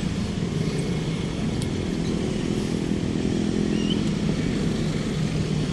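Road traffic: motor vehicle engines running steadily with a low, even hum.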